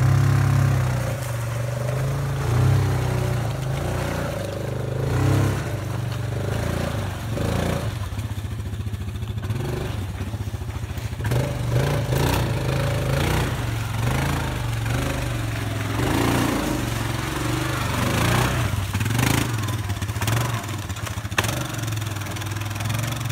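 Yamaha Viking side-by-side's single-cylinder engine running under load, rising and falling in repeated surges of throttle as it crawls out of a muddy creek gully and over rough ground. A single sharp knock comes near the end.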